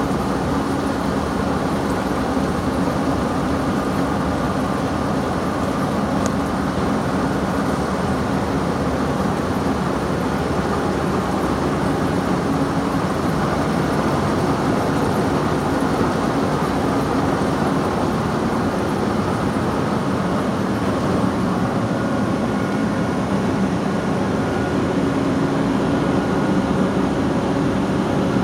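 Wirtgen W 210 i cold milling machine's large diesel engine running steadily at a constant speed, a loud hum with a low steady tone.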